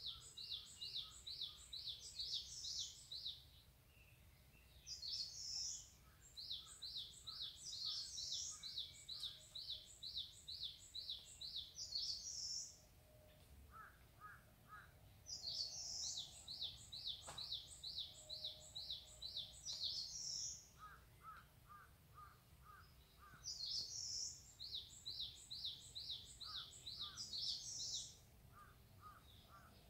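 Wild songbirds singing in a mountain forest. One bird repeats a high song of quick falling notes, each song several seconds long with short pauses between. A quieter bird gives short runs of lower notes in the gaps.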